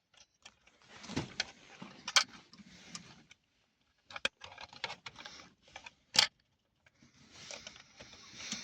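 Plastic smoke alarms being handled: scattered sharp clicks with rustling and scraping in between. There is no alarm beep.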